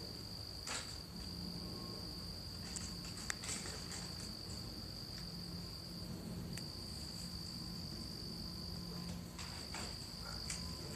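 Crickets trilling steadily in one high, unbroken tone, over a low droning hum that swells and fades every few seconds. The hum is the mystery engine-like noise, heard day and night, that the listener cannot trace to any plane.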